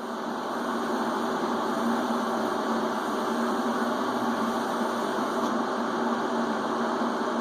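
TIG welding arc from an AHP AlphaTIG 200 welder, burning steadily on steel square tubing: a constant hiss with a low hum underneath.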